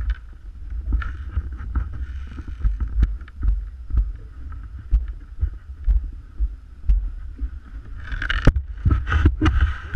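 Luge sled runners scraping as the sled slides slowly over snow and wooden boards, with a low rumble carried through the sled to the camera on its cover and knocks about once a second. The scraping grows louder near the end.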